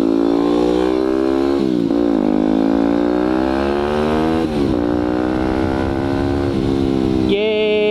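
Yamaha dirt bike's single-cylinder engine accelerating through the gears, its pitch climbing and then dropping at an upshift nearly two seconds in and again about four and a half seconds in, before settling to a steadier note near the end.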